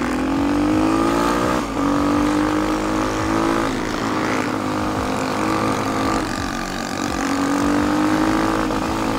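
Kayo K6 motard's 250 cc engine accelerating under way, its note climbing in pitch and then briefly breaking and dropping three times before climbing again.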